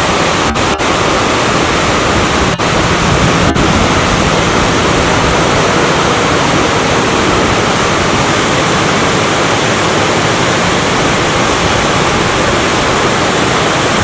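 A 5 m natural waterfall pouring over a rock face into a deep plunge pool, a loud, steady rush of falling water. There are a few very short dips in the sound in the first few seconds.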